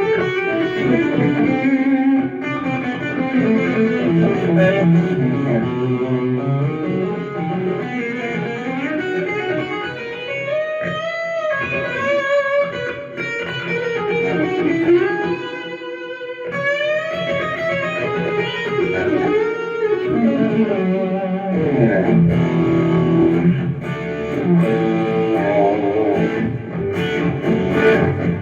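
Korina Flying V electric guitar, a replica of the 1959 model, playing lead lines: quick note runs, held notes with vibrato, and string bends that slide the pitch up and down.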